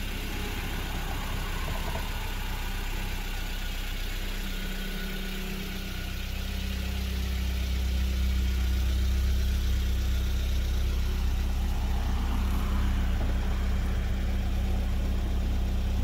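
1990 Isuzu Impulse XS's four-cylinder engine idling steadily, its exhaust note growing louder from about six seconds in. It runs with no exhaust leak, the leak having just been repaired.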